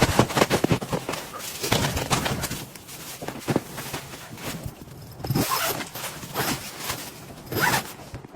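A zipper being pulled, in several quick runs of rapid clicking, the longest in the first few seconds and shorter pulls near the middle and the end.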